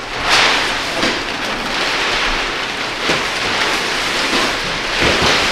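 Large nylon kite sail rustling and swishing as it is handled and spread out, a continuous crinkly rustle with several louder swishes.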